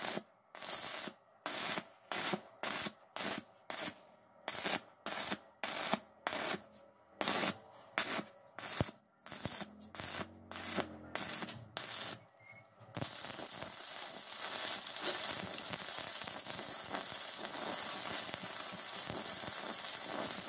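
Stick (MMA) welding arc crackling on thick steel flat bar. For about thirteen seconds the arc comes in quick short bursts, struck and broken again and again as the hole is filled a little at a time. It then burns as one continuous crackling run until it cuts off at the end.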